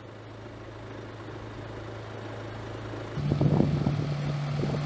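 Patrol car engines running steadily. About three seconds in, the sound steps up abruptly to a louder, higher-pitched running note.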